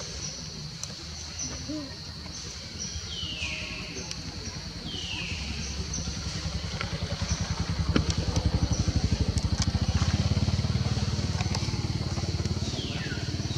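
A passing engine: its rapid low pulsing grows louder, peaks about eight to ten seconds in, then fades. A steady high whine runs throughout, and three short falling high calls are heard near the start and near the end.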